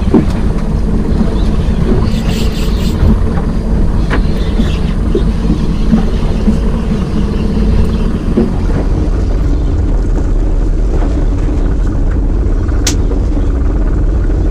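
Boat's outboard motor idling with a steady low hum, and wind buffeting the microphone. A brief high whine sounds near the end.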